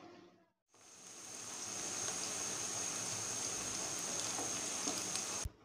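Sliced onions frying in hot oil in an aluminium karahi: a steady sizzle that starts after a brief silence, swells over about a second, and cuts off suddenly near the end.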